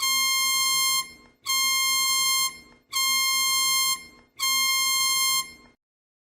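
Synthesized emergency-alert beep tone: four buzzy beeps of the same pitch, each about a second long, with short gaps between them.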